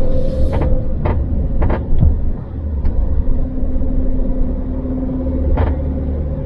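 Semi-truck cab on the move, with a steady engine and road rumble and several short sharp creaks from the cab. It is a persistent creak the driver has not been able to cure despite redoing the repairs.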